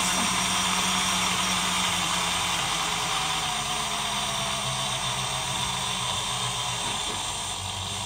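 Portable personal bottle blender running a last blending cycle on a fruit smoothie: a steady motor whir whose pitch drops slightly partway through.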